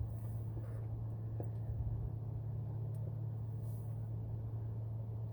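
Steady low hum with a few faint clicks and light rustling as a bolt and nut are fitted by hand to a horn mounting bracket.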